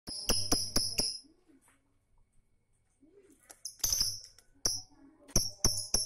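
Lovebird calling in rapid, shrill chirps: a quick run of about five, a pause, then chirping again that settles into a steady train of about four a second near the end.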